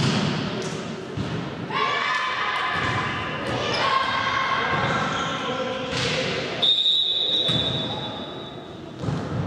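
Volleyball hits and thuds on a gym floor, then high-pitched shouting from the players. About seven seconds in comes one steady referee's whistle blast lasting about a second, with the sound echoing in the sports hall.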